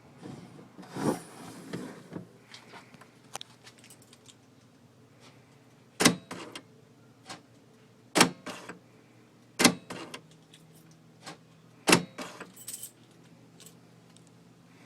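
Keys jangling on a key ring as the keyed liftgate lock of a 2002 GMC Yukon XL is worked. Four sharp clicks from the lock mechanism come about two seconds apart, each followed by a few lighter clicks.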